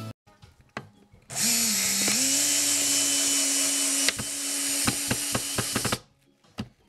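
Cordless drill/driver running for about five seconds, driving a long screw into the sofa's wooden backing board to pull it down onto the foam. The motor dips in pitch just after it starts, then runs steady, with a series of sharp clicks in the last couple of seconds before it stops.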